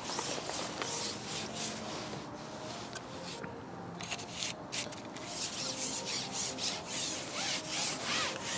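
A carbon fishing pole being pushed out over the water, rubbing as it slides through the angler's hands and over his seatbox in a run of short, irregular strokes.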